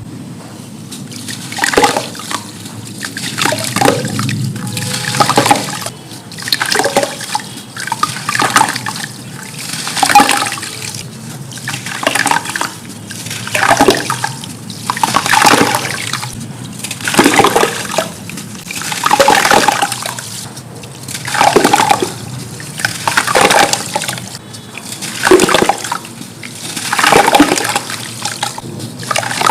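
Packed sand crumbling apart, with a fresh crumble every one and a half to two seconds and a soft rushing pour in between.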